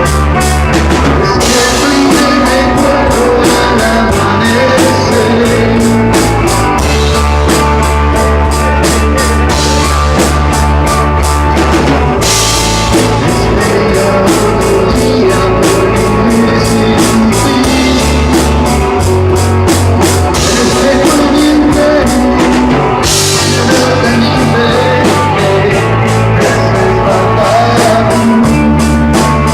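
A rock band playing live: a drum kit keeps a steady, fast beat under bass and electric guitar.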